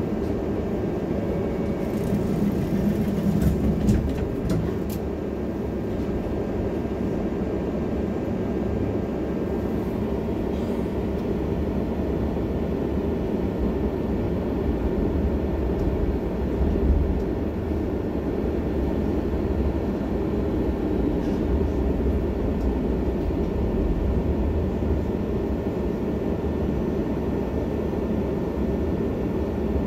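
Tram running along its rails, heard from inside the car: a steady low rumble of motors and wheels, with a few clicks and knocks in the first few seconds.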